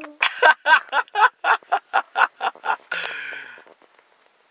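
A man's voice making a quick run of short vocal sounds, about four or five a second, that end in a breathy exhale.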